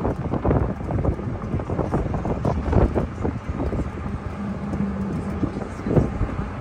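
Wind buffeting a handheld phone's microphone outdoors: a gusty low rumble with irregular puffs, and a brief steady low hum a little past the middle.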